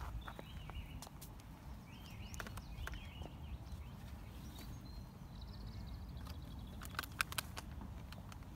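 Outdoor wind rumbling on the phone microphone, with scattered light clicks and knocks from handling and movement. A quick cluster of knocks comes near the end, and faint high chirps sound now and then.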